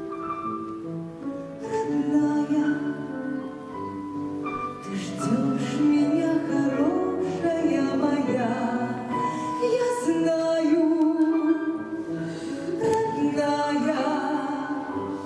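Live music: a voice singing long held notes over instrumental accompaniment.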